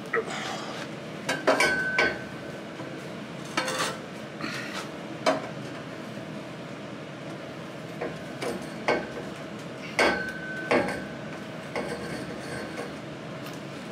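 Straight steel exhaust tube clanking against the exhaust pipe end as it is pushed and worked to slide over it: scattered sharp metal knocks, two of which ring on briefly.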